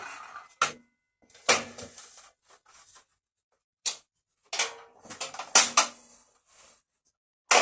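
The Evolution S185 circular saw's motor dying away at the very start after a cut through steel plate, followed by a scattering of sharp clicks and knocks, the loudest near the end.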